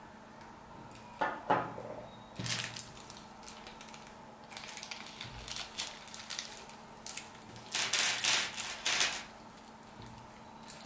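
Small clear plastic parts bag crinkling in the hands as it is opened, with small metal screws tipped out and clicking onto a table.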